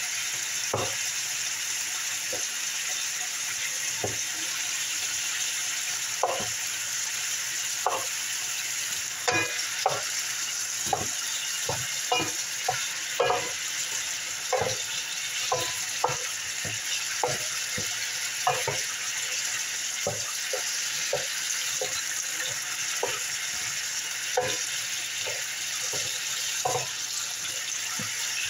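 Diced chicken breast sizzling in oil in a square skillet, with a steady hiss, while a wooden spoon stirs it, knocking and scraping against the pan at irregular moments.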